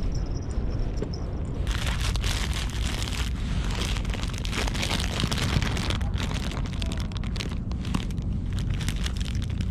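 Plastic bread wrapper crinkling and crackling as gloved hands open it, starting about two seconds in, over a steady low rumble of wind on the microphone.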